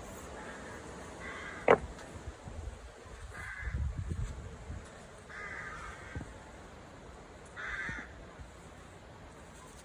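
A bird outside calling repeatedly, several short harsh calls about two seconds apart. A single sharp click stands out about two seconds in, and there is a low rumble a little before the middle.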